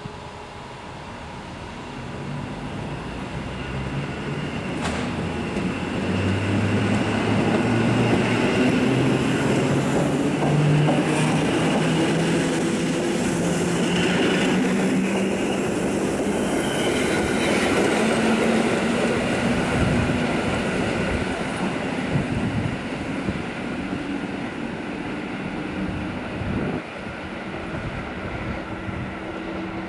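PKP EN57 electric multiple unit running past along the platform. Its traction motors hum and rise slowly in pitch as it gathers speed, over the sound of the wheels on the rails. It grows louder over the first several seconds and eases off toward the end.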